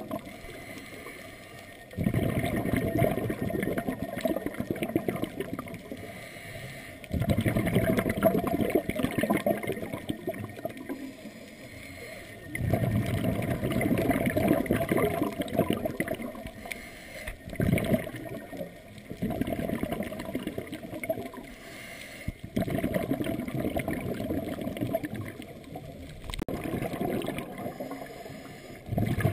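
Scuba diver's exhaled bubbles from the regulator, heard underwater: a burst of bubbling about every five seconds, each lasting two to four seconds, with quieter stretches between breaths.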